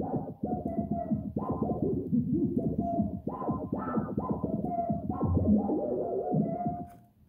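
SOMA Rumble of Ancient Times four-voice synthesizer playing a run of pitched electronic notes, about two a second, each starting sharply. The notes die away near the end.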